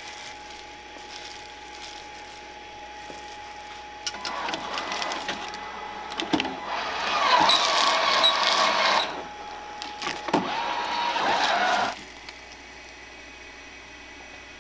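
Gimbap rolling machine running: its motor and rolling belt whir for about eight seconds as a roll is formed, with a couple of sharp clunks, loudest midway, then stop suddenly.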